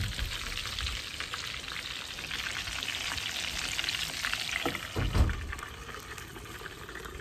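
Pressure-cooked chicken pieces frying in hot oil in a lidded frying pan: a dense crackle of sizzling, loudest in the middle, with a low thump about five seconds in.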